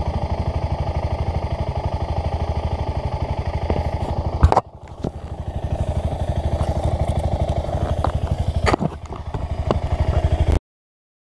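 Motorcycle engine running with a steady, even pulsing beat. About four and a half seconds in there is a sharp knock of the camera being handled, after which the engine sounds quieter and builds back up, with a few more handling knocks. The sound cuts off abruptly near the end.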